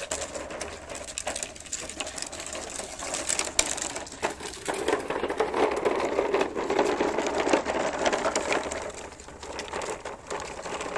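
Toddler's plastic wheeled push toy rattling and clicking rapidly as it is pushed over the ground, loudest through the middle.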